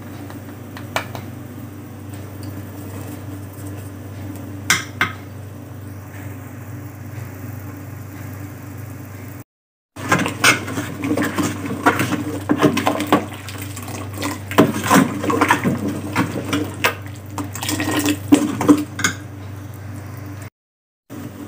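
Metal utensils and cookware clinking and scraping in a kitchen over a steady low hum: a few single clinks at first, then a stretch of dense, busy clatter in the second half.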